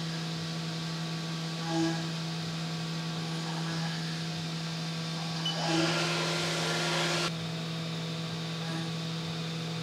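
Haas UMC 750 SS five-axis CNC mill running, a steady hum as a 1/8-inch end mill cleans up the corners of an aluminium part. A louder rush of noise comes in about six seconds in and cuts off sharply after about a second and a half.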